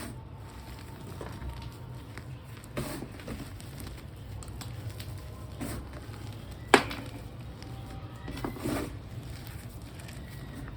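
Reformed gym chalk blocks being crushed: a few scattered crunches and snaps, the sharpest and loudest about two-thirds of the way through, with a steady low hum underneath.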